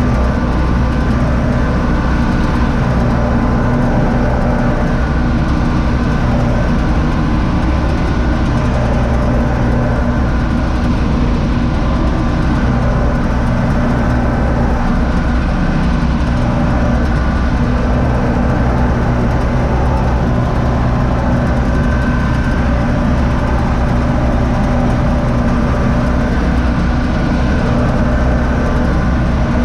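Universal U650 tractor's diesel engine running steadily under load, heard from inside its cab as it pulls a Zmaj Zemun 223 corn picker through standing corn.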